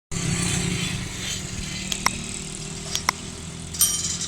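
Jaffar Express passenger train passing on the track: a steady rolling rumble with two double clacks about a second apart as wheels cross rail joints. A brief high squeal comes near the end.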